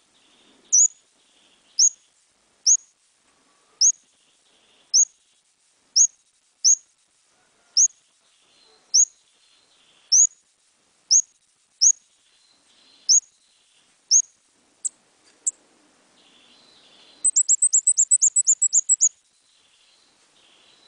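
An ốc mít decoy bird calling: short, high, rising whistled notes repeated about once a second, with fainter, lower notes between them. Near the end it gives a fast run of about ten notes.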